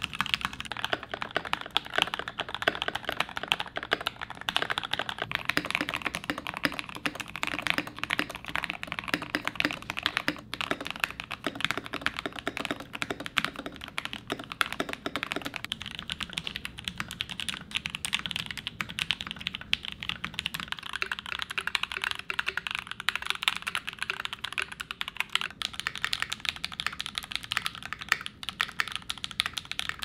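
Fast, continuous typing on custom-built mechanical keyboards, a dense clatter of keystrokes. About halfway through, the typing moves to a different board and the clatter turns less deep.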